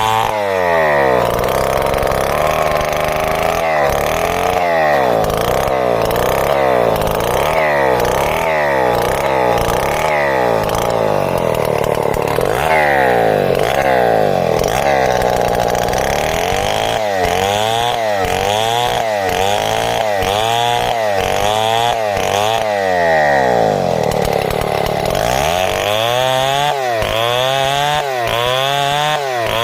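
Two-stroke chainsaw running under load, sawing timber into boards; its engine pitch drops and climbs again about once a second throughout.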